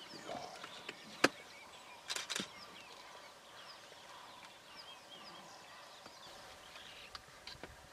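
African bush elephant bull browsing in bushes: a sharp snap about a second in and two short crackles a second later as branches break, with a few faint ticks near the end. Small birds chirp throughout.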